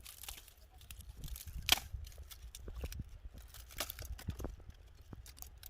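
Irregular crackling and snapping of dry twigs and leaves as firewood is gathered, with one sharper snap under two seconds in.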